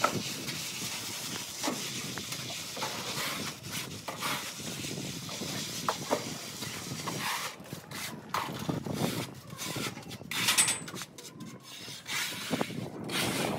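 A hand float rubbing over fresh render on a wall, making a rough scraping hiss in uneven repeated strokes.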